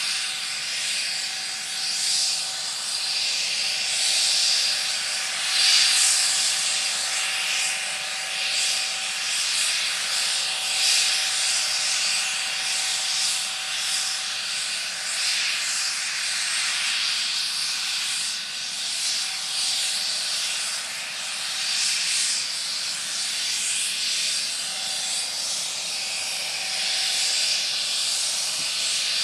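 McDonnell Douglas MD 902 Explorer helicopter's twin turboshaft engines running on the ground during start-up: a steady turbine hiss with a faint steady whine, swelling and dipping a little in loudness.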